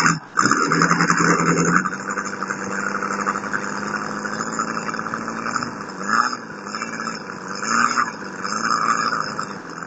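O.S. FF-320 Pegasus four-cylinder four-stroke model aircraft engine running during its first-tank break-in. It runs at a higher speed for about the first two seconds, then drops back to a steady low idle. From about six seconds in, its speed rises and falls several times.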